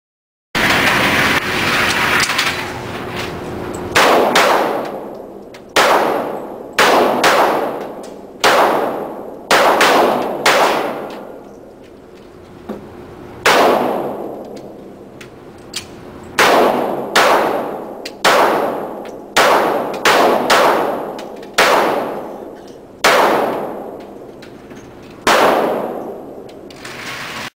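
A series of about twenty gunshots, fired singly at uneven intervals of roughly one to three seconds, some in quick pairs. Each shot is followed by a long ringing tail.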